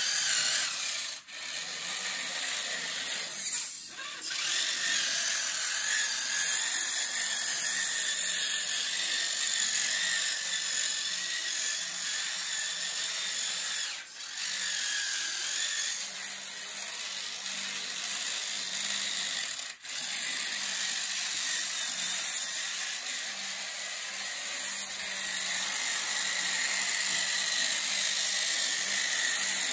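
Small electric gear motors of a homemade RC four-wheel-drive chassis whining steadily as it drives. The motors cut out for a moment four times before starting again.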